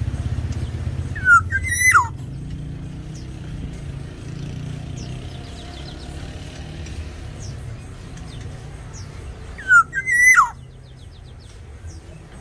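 Black-naped oriole of the Sumbawa form giving two loud fluty whistled calls about eight seconds apart, each a short upward slur that swoops down. A steady low rumble runs underneath, with faint thin chirps from other birds.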